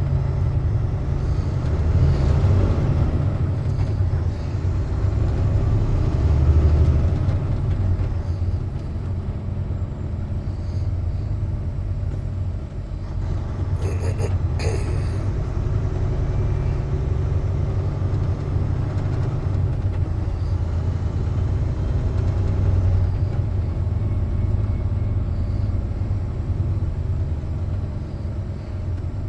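Steady low rumble of a heavy truck's engine and road noise heard from inside the cab, with a couple of short sharp clicks about halfway through.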